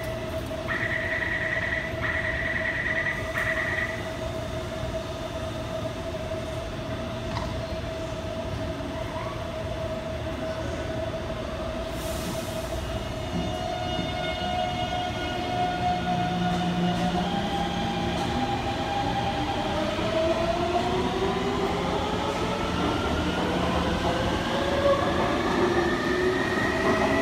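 Taipei Metro C321 train departing a station: pulsing door-warning beeps stop a few seconds in, a short hiss of air comes about 12 seconds in, then the traction motors start a whine of several tones that rise steadily in pitch as the train accelerates out.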